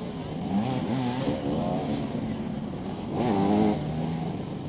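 Motoball motorcycle engines revving, their pitch rising and falling as the bikes manoeuvre, with more than one engine heard at once. One engine revs up louder a little past three seconds in.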